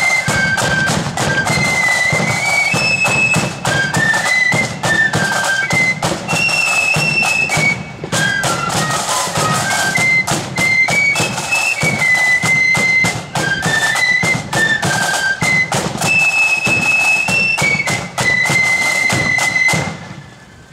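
Marching flute band of the blood-and-thunder kind: flutes playing a march tune in unison over a pounding bass drum and rattling side drums. The tune ends just before the end.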